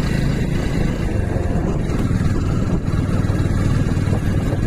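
Motorcycle running at a steady pace on the move, a low even engine hum under a steady rush of wind and road noise.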